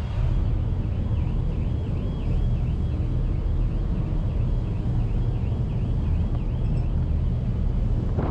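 Car ferry's engines and hull giving a steady low rumble, with a faint high warbling tone rising and falling about twice a second over it that stops near the end.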